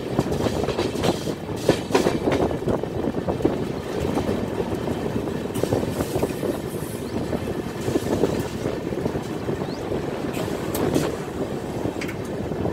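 Passenger train coaches running along the track, heard from on board the moving train: a steady rumble of wheels on rails with frequent short clicks and clatter.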